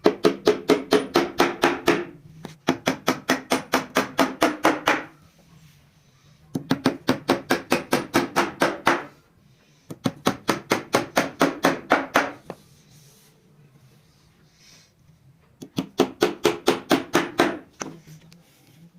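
Rapid, evenly spaced blows of a hand tool on wood, about five a second, in five runs of two to three seconds with short pauses between them.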